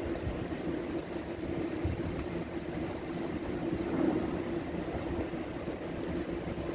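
Steady machine hum with one constant mid-low tone, over a low rumble with a few faint knocks.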